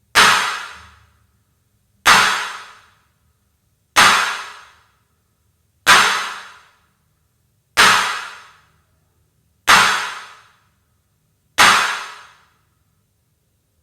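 A sharp crack-like hit sound effect, repeated seven times at an even pace about two seconds apart, each one fading out within a second.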